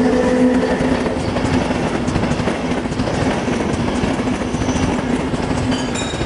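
Electric locomotive and passenger coaches rolling past on the rails: a steady rumble with wheels clattering over the track and a steady low hum.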